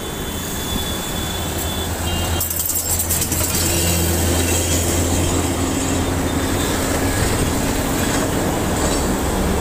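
Road traffic heard from a moving bicycle: a steady low drone of heavy vehicle engines with road noise. A thin high whine sounds for the first two seconds, and a short run of clicks comes a little after two seconds in.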